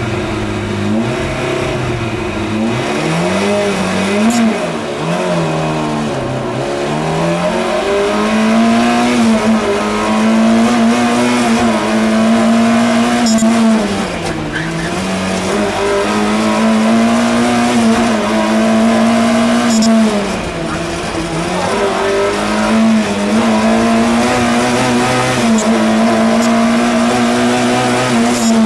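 Small car's engine heard from inside the cabin, driven hard at high revs. The engine note holds high, dips several times and climbs again, as with gear changes or lifting off, and there are a few sharp clicks.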